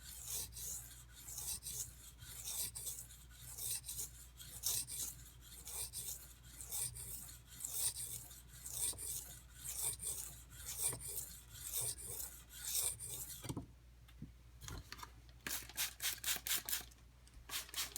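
Steel knife blade scraped back and forth on a whetstone with a hissing rasp, about one stroke a second. The blade is held nearly flat to thin the edge into a convex grind. The strokes stop about 13.5 seconds in, then resume as a quicker run of short strokes near the end.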